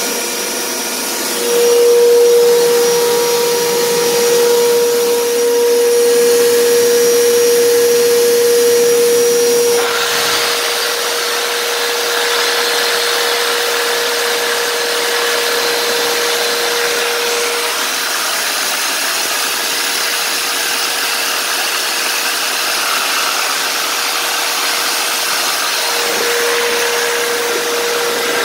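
Cordless reciprocating saw running and cutting into a cast iron radiator: a steady motor whine with the blade rasping on the metal. It gets louder about a second and a half in, and its tone shifts about ten seconds in.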